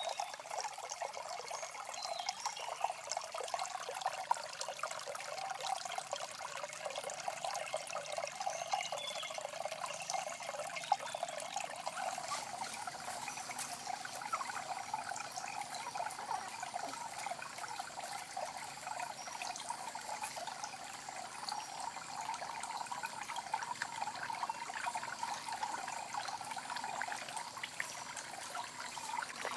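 Water trickling steadily from a small clay-pot fountain into a shallow pond.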